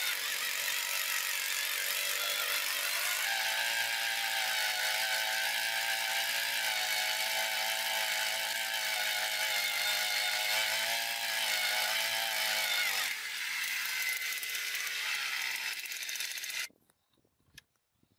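Single-cylinder two-stroke petrol engine of a 2.5 hp hand-held earth auger running steadily under load as its 30 cm bit bores into dry, hard soil. The engine note rises slightly about three seconds in and changes again around thirteen seconds. The sound cuts off suddenly near the end.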